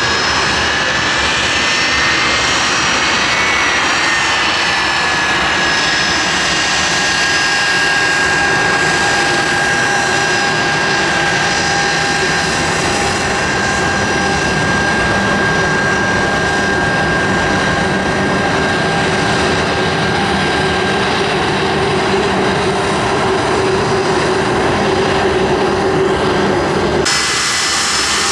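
Blackburn Buccaneer's twin Rolls-Royce Spey turbofan engines running as the jet taxis: a loud, steady jet roar with high whining tones over it. The sound shifts abruptly near the end.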